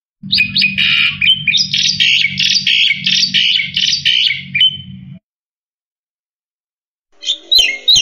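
Black-winged myna (jalak putih) singing a fast, dense run of chattering and whistled notes for about five seconds; after a short pause it starts another burst near the end.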